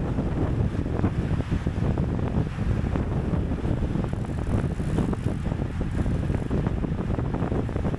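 Wind buffeting the microphone of a camera riding along in a bicycle race: a steady, dense low rumble that flutters rapidly.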